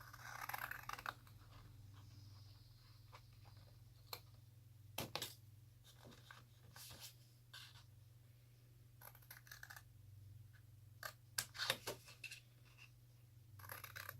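Scissors snipping through heavy cardstock to cut out the corner squares, in short groups of snips with pauses between.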